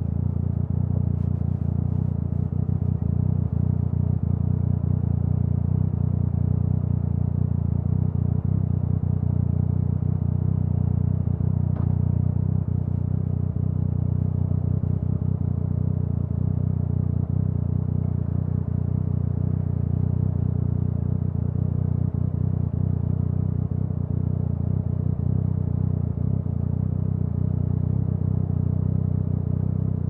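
Yamaha MT-09's three-cylinder engine idling steadily through an Akrapovic aftermarket exhaust, the bike standing still.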